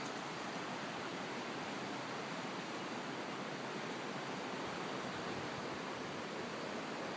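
River water rushing past in a steady, unbroken noise.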